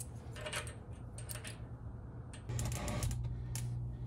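Scattered light metallic clicks and taps of shock-mounting hardware and tools being handled, over a steady low hum that gets louder about two and a half seconds in.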